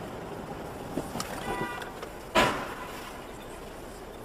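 Steady road noise from a moving car, heard from inside, with a short pitched sound about a second and a half in. A single sharp knock comes just past the middle and is the loudest thing heard.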